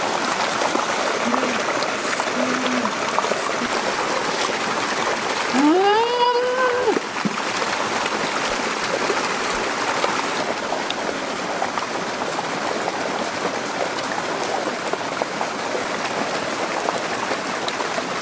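Steady rush of a running stream, with a woman's voice over it: two short low 'mm' hums in the first few seconds, then a longer 'mmm' that rises in pitch and holds, about six seconds in, the sound of her savouring the food.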